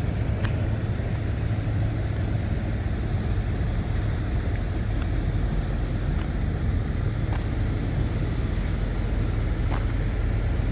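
Steady low engine rumble of idling vehicles, unchanging throughout.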